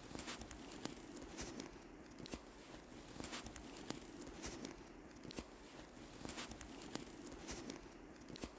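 Footsteps crunching in deep fresh snow, faint, with irregular small crunches and clicks.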